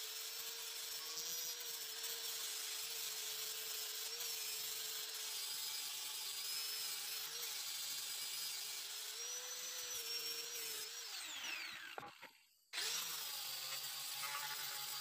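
Electric angle grinder running steadily against a wooden slab, its disc grinding and smoothing the wood with a high whine. About eleven seconds in it winds down with a falling pitch, goes quiet for a moment, then runs again.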